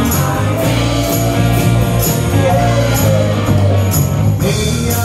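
Live rock band playing with a steady beat: electric guitar, bass guitar and drums.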